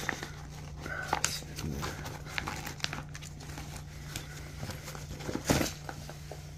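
Rustling of a nylon carry bag and knocks of the plastic TACKLIFE tire inflator as it is pulled out by hand, with a louder knock about five and a half seconds in.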